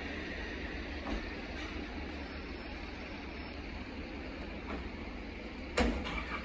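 Steady road traffic noise with no siren sounding, and one short, sharp knock near the end.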